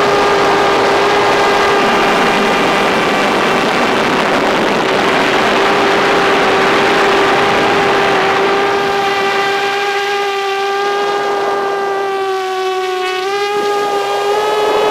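FPV drone's motors and propellers running with a steady whining hum. Near the end the pitch dips briefly, then climbs back as the throttle changes.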